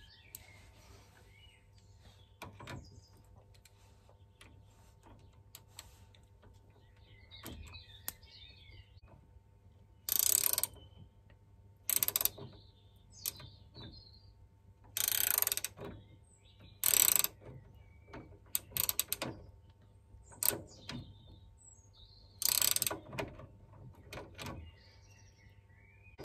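Ratcheting spanner clicking in short bursts as it tightens the ball-joint nut of a track rod end on the rear suspension arm. The first several seconds hold only light ticks; the loud bursts begin about ten seconds in. Birds chirp faintly.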